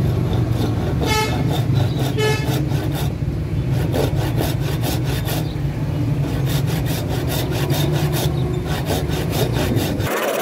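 Hand saw rasping through a wooden knife handle held in a vise, in clusters of quick strokes, over a steady low engine hum. Two brief tooting notes sound about one and two seconds in.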